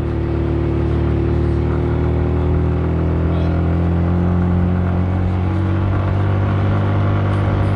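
Car driving at a steady pace: a constant low engine hum with road noise.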